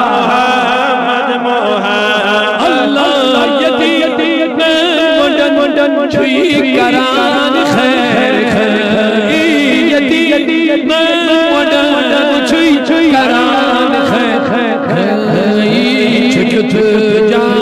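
A man's voice chanting a Kashmiri naat in long, ornamented, wavering notes.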